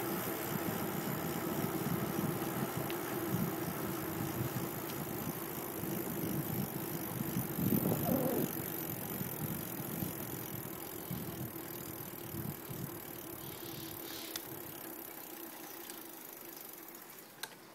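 Rushing wind on a phone microphone and bicycle tyre noise during a fast downhill ride on a road. The noise stays steady, then slowly gets quieter toward the end.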